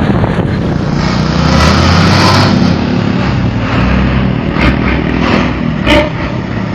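Diesel bus engine running with a deep snoring exhaust note ('knalpot ngorok'), swelling as it revs about a second in. A few short sharp sounds come in the second half.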